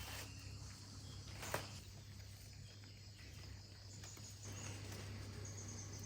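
Faint outdoor ambience of insects chirping steadily, with one sharp snap about a second and a half in.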